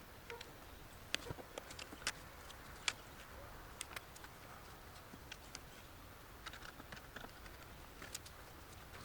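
Scattered light clicks and taps of small hard objects being handled, irregular and faint, with one louder click about three seconds in.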